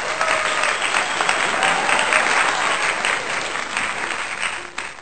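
A crowd applauding, many hands clapping together, the applause fading near the end.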